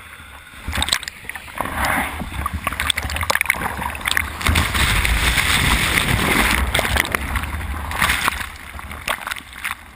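Whitewater of a large breaking wave rushing over a board-mounted camera, water churning and splashing against it with a low rumble. The rush builds from about two seconds in, is loudest in the middle, and eases near the end.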